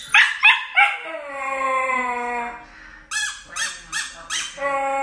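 A puppy yelping and howling: three quick yelps, a long howl that sags slightly in pitch, then four short yelps and another long howl starting near the end.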